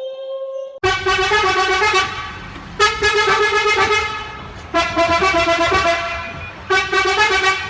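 Truck horn sounding four long blasts, each one to two seconds, with a low rumble underneath.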